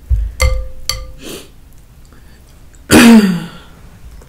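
Boiled crawfish being picked apart by hand, with a few light clicks and clinks in the first second. About three seconds in comes one loud, short throat clear.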